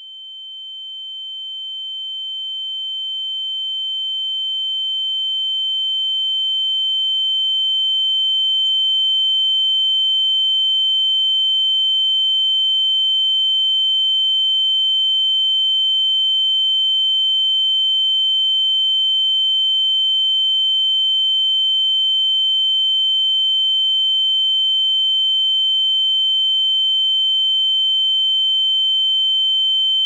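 Ear-ringing (tinnitus) sound effect: a steady, high-pitched pure tone with fainter tones above and below it, swelling over the first nine seconds or so and then holding level.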